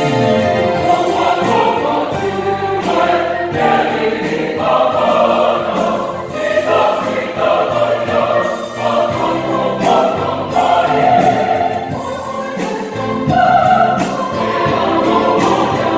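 Mixed church choir of men and women singing a hymn in Samoan, the voices holding long notes and moving between them.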